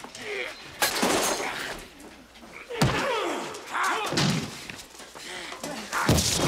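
A fight with three heavy crashing thuds, about a second, three seconds and six seconds in, between which men grunt and shout.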